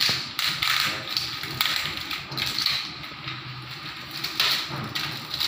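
Scraping, rustling and light taps as a long metal spotlight track is handled and pried open by hand.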